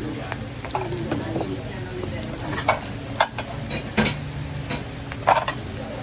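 Sisig and eggs sizzling in oil on hot cast-iron sizzling plates, a steady frying hiss broken by several sharp clicks and pops.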